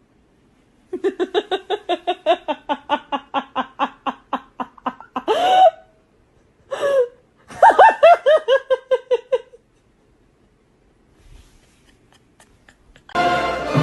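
A person laughing hard in rapid, high-pitched bursts of about six a second, with a rising squeal, a short cry and a second fit of laughter. Orchestral music comes in near the end.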